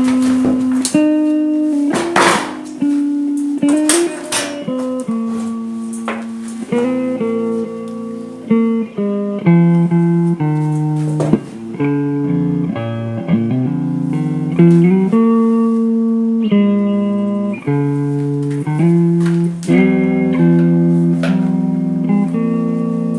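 Background guitar music: a handmade guitar played fingerstyle, single plucked notes and chords ringing on, a new note or chord about every second.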